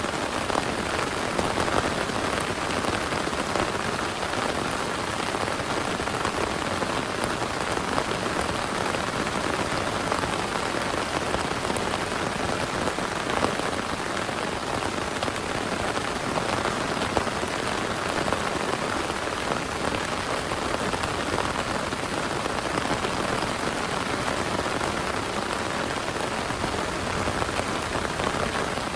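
Heavy rain falling steadily, a dense even hiss with occasional sharper drop hits.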